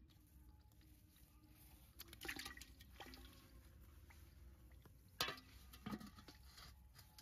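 Faint, scattered splashes and drips of water: a handful of short wet sounds, the loudest about five seconds in.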